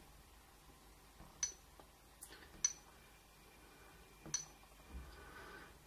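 Light fingertip taps on a smartphone's glass touchscreen: about four short, sharp clicks spaced unevenly.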